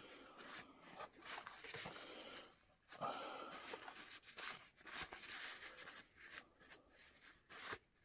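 Tissue paper rustling and scratching as it is dragged across an oil-painted miniature horse to wipe back the wet paint, with small handling clicks and knocks from the figure.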